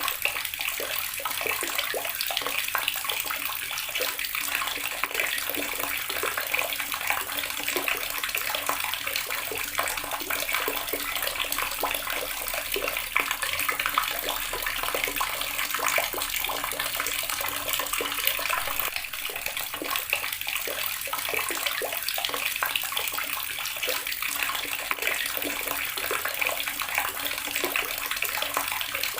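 Water running steadily from a tap and splashing into a basin or tub below.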